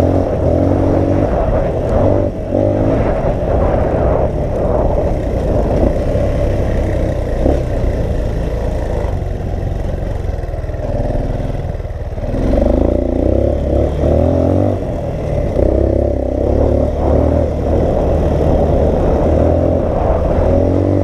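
Dirt bike engine running under way on a sandy trail, its revs rising and falling with the throttle and easing off briefly about halfway through before picking up again. Wind buffets the microphone over it.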